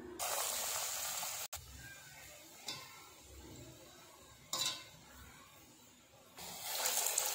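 Hot mustard oil sizzling in two stretches, each cutting off abruptly. Between them come soft, quieter squelches of hands coating boiled potato balls in thick gram-flour batter.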